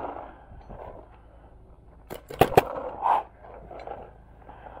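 Paintball markers firing a quick burst of about four sharp pops a little past two seconds in.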